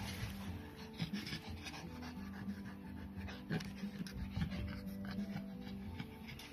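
A Pekingese puppy panting, with many short scratchy clicks, over background music with steady held low notes.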